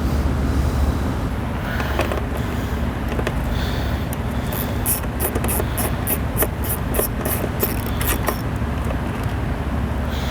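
Hand tools working the fasteners of a motorcycle's plastic side panels, with some rubbing and scraping. About four seconds in comes a run of quick, sharp clicks, about four a second, lasting some four seconds, over a steady low hum.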